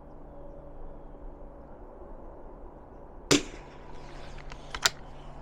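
A .22 LR rifle firing one round of Eley Match ammunition about three seconds in, a single short, sharp crack. A fainter click follows about a second and a half later.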